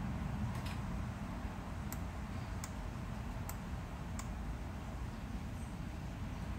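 Computer mouse clicking: five or six sharp, separate clicks over about the first four seconds, over a steady low rushing noise.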